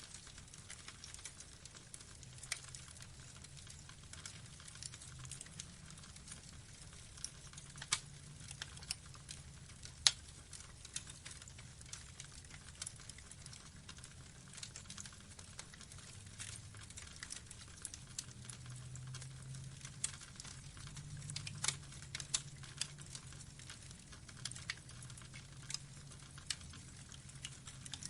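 Burning wood logs crackling, with irregular sharp pops over a low steady rumble of the flames; the loudest pop comes about ten seconds in.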